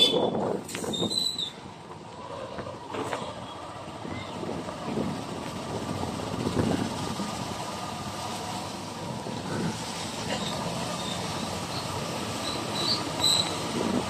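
Steady outdoor background rumble, like distant vehicle traffic, swelling and falling a little, with a few short high chirps near the end.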